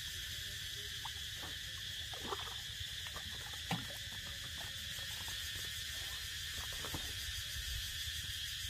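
Steady high-pitched chorus of insects, with a few faint knocks and ticks.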